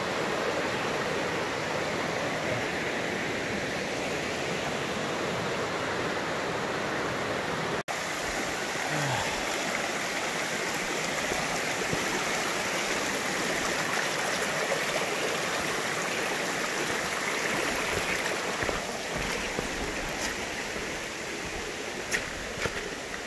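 Stream water rushing steadily, with the sound cutting out for an instant about eight seconds in.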